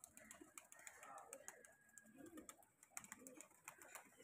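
Faint cooing of domestic pigeons, with a few scattered light clicks.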